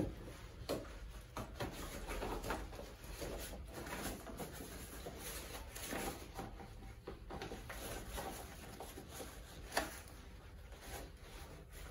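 Scattered rustling and light knocks as a bagpipe stock is pushed through the collar of a synthetic pipe bag and worked into place by hand.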